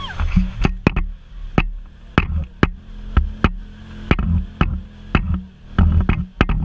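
Music with a drum beat over a bass line.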